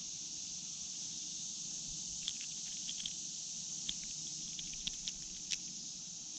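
Steady, high insect chorus of crickets or similar insects, with scattered light clicks and ticks a few seconds in as a hook is eased out of a bluegill's mouth.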